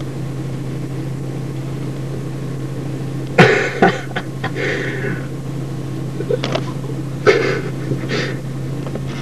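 Steady low hum of an idling car, heard from inside the cabin. A little over three seconds in comes a loud sharp knock, followed by a few more scattered knocks and rustles.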